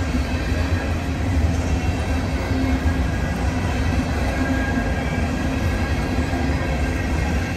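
Freight train of hopper cars rolling past: a steady, low rumble of steel wheels on rail that holds even throughout.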